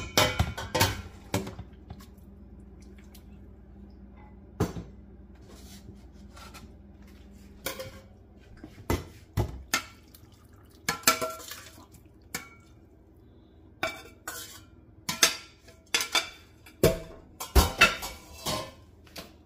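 A metal spoon clinking and scraping against a stainless steel soup pot and a ceramic bowl as soup is served, in irregular knocks that come thickest in the last several seconds. A steady low hum runs underneath.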